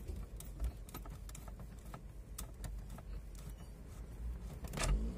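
Scattered light clicks and taps of hand tools and plastic parts being handled at a car's bare steering column, with a low rumble underneath and a louder knock near the end.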